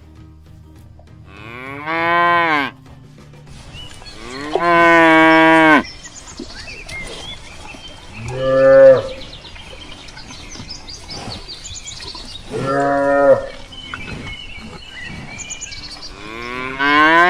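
Cattle mooing: five long moos about four seconds apart, the first and last bending in pitch. Faint bird chirps can be heard between the moos.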